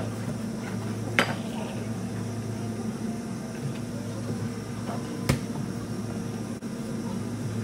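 Steady low appliance hum with a few sharp clinks and knocks of kitchenware being handled.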